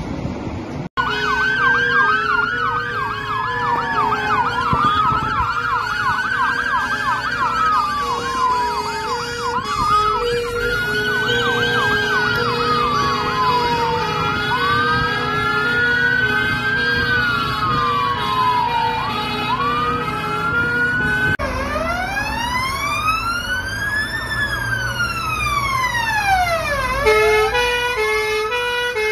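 Several fire engine sirens wailing at once, each rising and falling out of step with the others, over a steady alternating two-note tone and the rumble of the moving convoy. Later a single slow wail rises and falls, and near the end a quick two-note hi-lo tone takes over.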